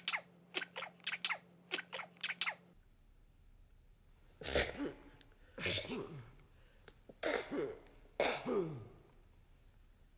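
Infant sneezes: four short, sharp bursts, each with a brief falling voiced tail, coming about a second apart in the second half. Before them, in the first few seconds, a quick run of about ten sharp clicks.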